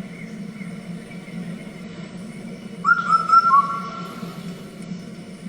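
Recorded song of an Indian cuckoo (four-noted cuckoo): one whistled four-note phrase about three seconds in, over a steady low hum.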